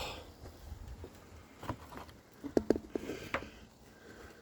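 Scattered faint clicks and light knocks, busiest in the middle, like tools and parts being moved around by hand in an engine bay.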